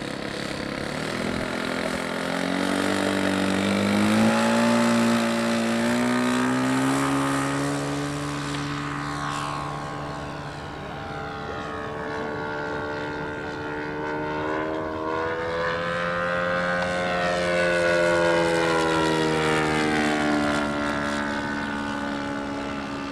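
Radio-controlled Gee Bee racer model airplane, its motor and propeller opening up to full throttle on the takeoff roll with a rising pitch, then flying passes overhead. The pitch and loudness swell and fall as it goes by, loudest a few seconds in and again near the end of the second pass.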